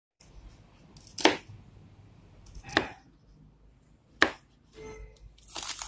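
Kitchen knife chopping red onion and tomato on a plastic cutting board: three sharp, separate chops about a second and a half apart, then a quicker run of cuts near the end.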